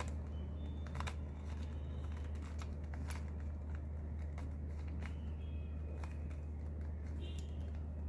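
Plastic layers of a Rubik's Cube clicking and clacking irregularly as they are twisted by hand, over a steady low hum.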